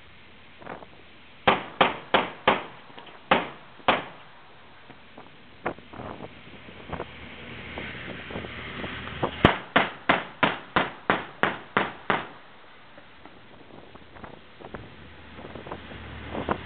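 Shipboard machine gun firing single shots at an uneven pace, six in the first few seconds, then a run of about nine shots at roughly three a second. Wind on the microphone hisses between the shots.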